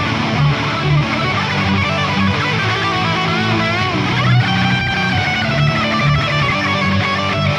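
Electric guitar lead played through the Brainworx Diezel VH4 amp-sim plugin, without drums or bass: a melodic line with vibrato on a note about three seconds in, then held sustained notes, over a backing guitar part.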